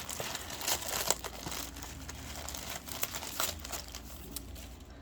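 Packaging crinkling and rustling in the hands as paintbrushes are unwrapped, in irregular bursts that thin out toward the end.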